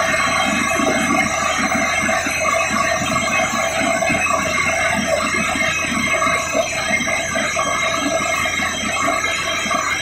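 Borewell drilling rig running steadily under load as it drills, with a shower of rock cuttings and muddy water falling around the drill rod at the wellhead.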